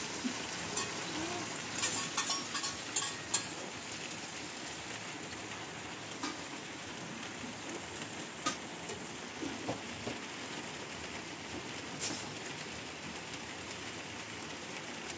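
Metal cookware clinking as a steel bowl and a small pot are handled over a burner: a quick run of clinks about two seconds in, then a few single clinks over a steady soft hiss.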